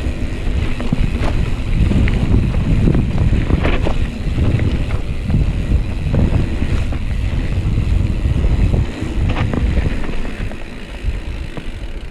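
Wind buffeting the microphone of a GoPro Hero 5 Session action camera on a mountain-bike ride, with scattered knocks and rattles from the bike running over rough trail. The rumble eases a little near the end.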